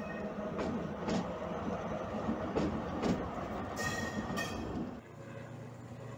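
SNCF BB 75000 diesel-electric locomotive passing close by, its wheels clicking over rail joints and points, with two short horn notes about four seconds in. After about five seconds a steady low hum of a distant diesel locomotive takes over.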